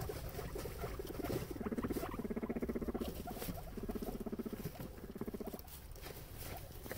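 Guinea pigs pulling and chewing hay from a hay feeder, with rustling and crunching throughout. Twice, for about two seconds each, a low, rapidly pulsing rumble sounds from one of the guinea pigs.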